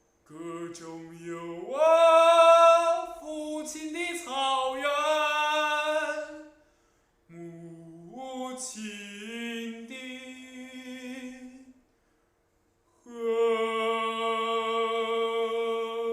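A young man singing unaccompanied in three long phrases, sliding up into notes and holding them, with short pauses between the phrases.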